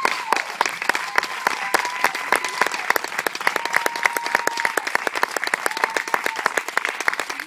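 Small audience applauding: dense, fast hand clapping, with a few held high-pitched notes over it.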